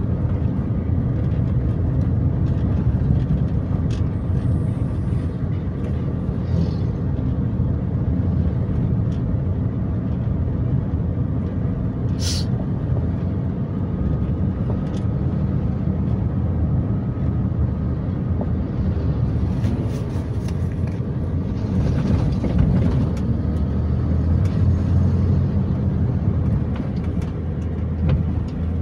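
Steady low rumble of road and engine noise heard inside a moving car's cabin, with a short high hiss about twelve seconds in.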